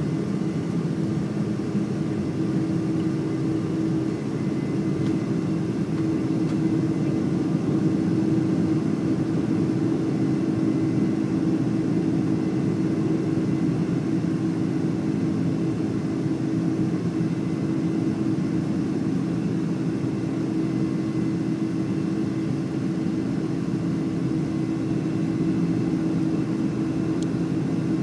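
Boeing 747-400's jet engines during the climb-out after takeoff, heard from inside the cabin over the wing: a steady low drone with a held hum tone.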